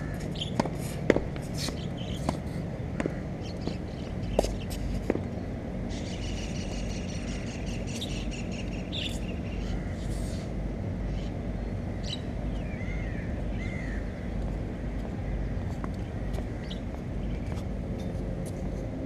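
A few sharp tennis-ball impacts in the first five seconds, then birds calling over a steady low outdoor rumble: a chattering call around six to eight seconds in and two short chirps around thirteen seconds in.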